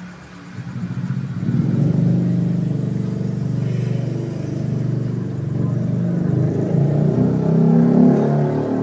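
A motor vehicle's engine rumbling loud and low close by on the road. It swells in over the first two seconds and then holds steady.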